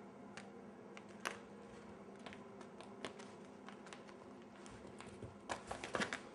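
A kitten's paws and claws tapping and scratching faintly on a wooden floor and on cloth as it plays, with a quick flurry of taps near the end as it rears up and claws at the hanging fabric.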